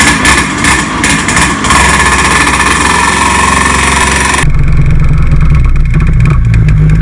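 IAME X30 Super 175cc two-stroke kart engine running just after starting, uneven at first and then steadier. About four and a half seconds in, the sound switches abruptly to a deeper, more muffled drone, as heard from on the kart itself.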